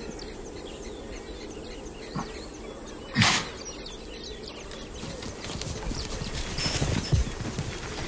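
Young lions scuffling in dry grass: rustling that builds over the last few seconds, with a cluster of sharp knocks near the end. One short, sharp burst of noise about three seconds in stands out as the loudest sound, and faint chirps run behind.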